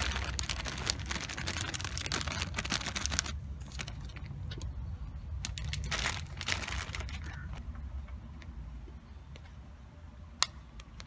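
Crackly rustling of a plastic bag of shredded lettuce being shaken out over a hard taco shell. It runs for about three seconds, comes back in a shorter burst about six seconds in, and is followed near the end by a single sharp click.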